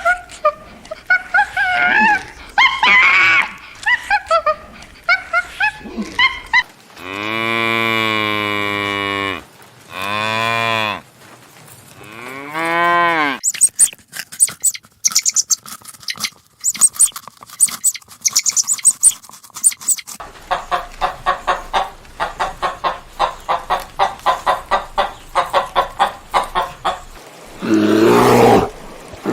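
A succession of animal calls: high chirping calls, then three long, deep mooing calls like cattle, then high twittering, a fast run of short repeated calls, and a final long call near the end.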